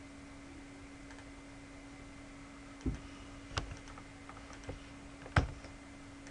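A few sharp computer key and mouse clicks, scattered from about halfway through, the loudest near the end, over a steady low electrical hum.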